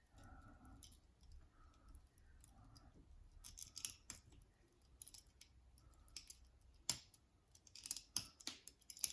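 Lever picking tools working inside a six-lever padlock: faint metallic scraping and small clicks of the pick against the levers, with a few sharper clicks in the second half.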